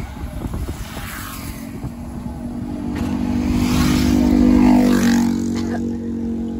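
A motorcycle overtaking: its engine grows louder to a peak about four and a half seconds in, then drops in pitch as it goes past. Wind buffets the microphone at the start.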